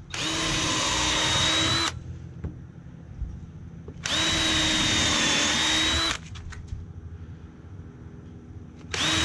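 Power drill running in three bursts of about two seconds each, at a steady speed, with short pauses between: drilling pilot holes into 2x4 lumber with a 1/8-inch bit.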